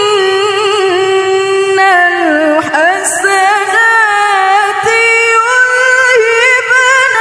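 A woman reciting the Quran in melodic tilawah style, unaccompanied, holding long ornamented notes that bend and waver in pitch.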